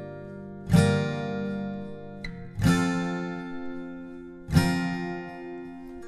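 Background music: acoustic guitar strumming chords, three strums about two seconds apart, each left to ring and fade.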